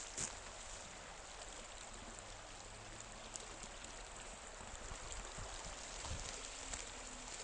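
The Ingering river flowing: a steady, even rush of water.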